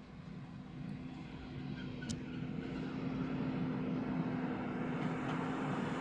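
Fendt 828 Vario tractor engine running steadily while pulling a cultivator, a steady drone growing louder as the tractor approaches.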